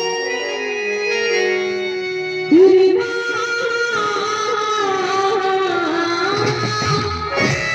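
Live band music: a wavering, gliding melody line held over accompaniment, with a louder new phrase starting about two and a half seconds in.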